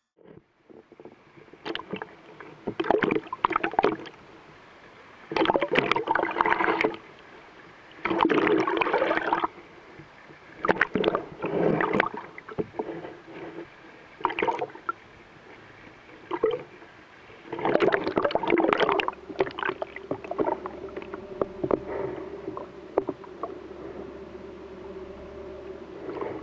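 Seawater sloshing and gurgling around an underwater camera at the sea surface beside a boat hull, in irregular bursts a second or two long, over a steady low hum.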